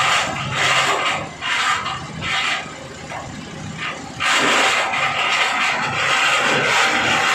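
Diesel-driven areca-nut dehusking machine running, a steady mechanical rush of noise that drops quieter about a second in and comes back to full loudness a little past the middle.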